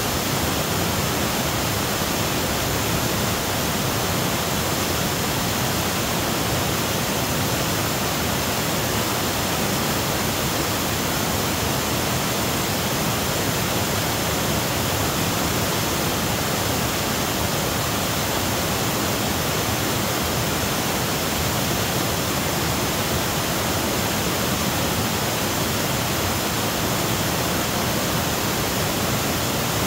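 Small forest waterfall rushing steadily over boulders: a loud, even roar of white water.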